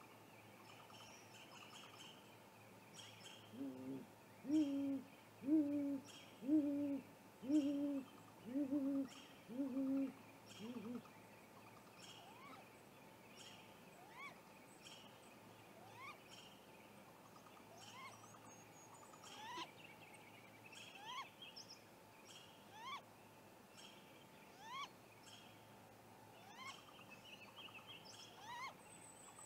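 Great gray owl giving a series of about eight deep, evenly spaced hoots, about one a second, the last one trailing off. After it, a string of quieter short rising whistled notes repeats every second or so.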